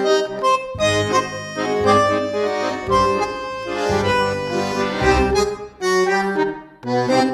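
Instrumental background music: a melody of held notes over bass notes that change about once a second, fading briefly near the end.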